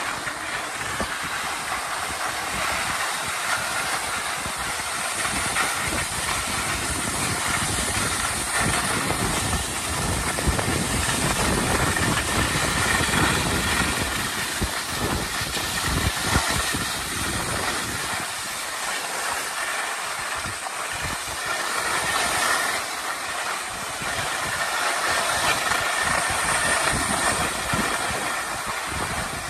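Skis hissing and scraping steadily over hard-packed groomed snow, two skiers close together, growing louder and softer by turns.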